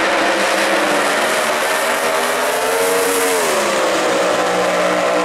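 Supercharged Top Doorslammer drag-racing engines at full throttle as the cars launch and run down the strip, loud and steady. About three and a half seconds in, the engine pitch drops sharply, then holds.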